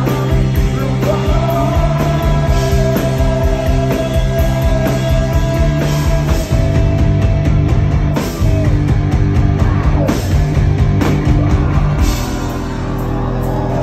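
Rock band playing live at full volume: drums, electric guitar and bass, with one long held high note from about a second in to about eight seconds.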